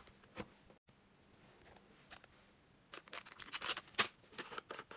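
Plastic slime tub being handled: a quick run of sharp light clicks and crackles, starting about three seconds in, as the container is picked up and its lid worked.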